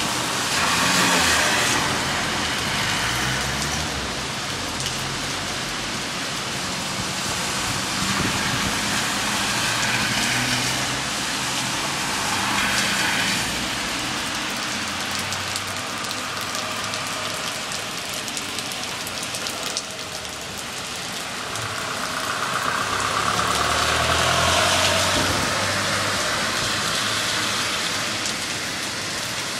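Heavy rain pouring steadily, with cars driving through the flooded street several times. Each pass swells and fades, and the longest comes near the end.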